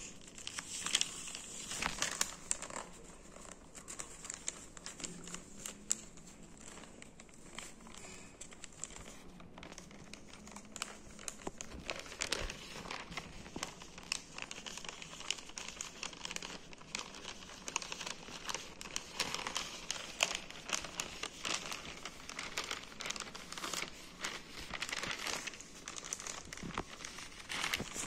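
Newspaper being folded and rolled tightly by hand, rustling and crinkling with irregular sharp crackles.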